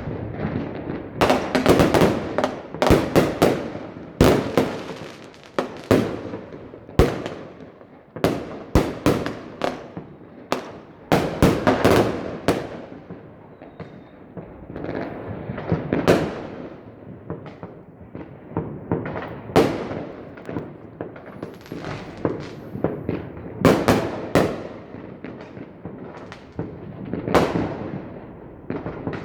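Aerial fireworks display bursting: many sharp bangs at irregular intervals, some in quick clusters, over a steady rumble of more distant bursts.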